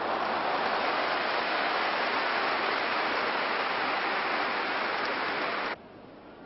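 Large stadium crowd cheering, a loud steady wash of noise that cuts off abruptly near the end, leaving only a faint hiss.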